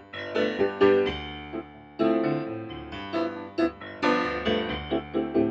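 Solo acoustic grand piano playing a slow piece with both hands: chords and melody notes ring and fade, and new chords are struck about two seconds in and again about four seconds in.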